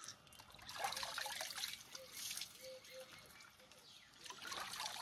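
Faint water trickling and dribbling as hands scoop cold spring water from a small rock pool and let it run off.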